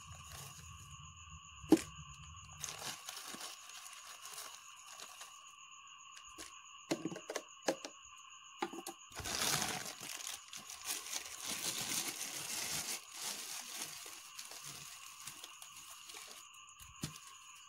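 Plastic bag of sodium metabisulfite (SMB) crystals crinkling and rustling while the crystals are scooped out with a plastic spoon and tipped into a plastic cup. There is a sharp click about two seconds in and a louder stretch of rustling around nine to thirteen seconds, over a faint steady high hum.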